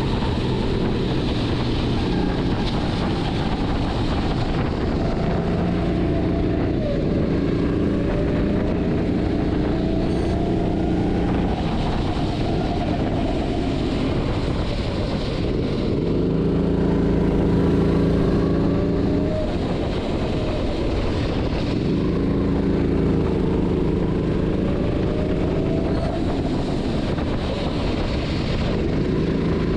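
Go-kart engine running hard from the driver's seat, its pitch climbing and holding for several seconds at a time, then dropping back before climbing again, as it accelerates and lifts through the laps. Wind on the microphone.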